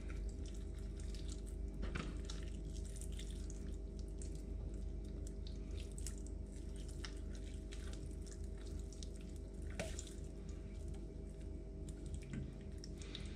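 Faint, scattered wet clicks and squelches of a trout's guts being worked out of the body cavity by hand, over a steady background hum.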